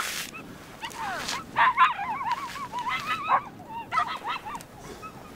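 A dog whining and yelping in a quick run of short, rising-and-falling high calls, with a few sharp scuffs in the snow among them.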